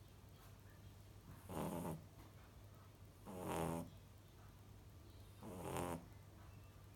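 A sleeping puppy snoring: three snores about two seconds apart, each lasting about half a second.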